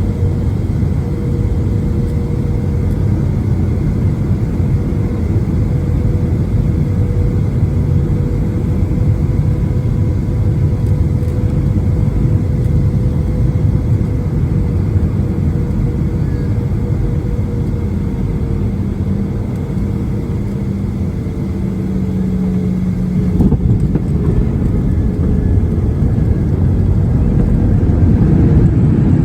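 Steady cabin noise inside a Boeing 737 MAX 8 airliner: engine and airflow noise, with a faint steady hum. A lower tone comes in about 19 seconds in, and a brief knock comes about 23 seconds in.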